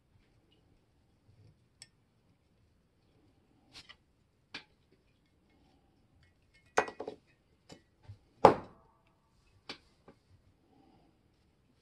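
Scattered clicks and knocks of a painted cast iron level and its small metal fittings being handled during reassembly. Two louder knocks come about seven and eight and a half seconds in, the second with a brief metallic ring.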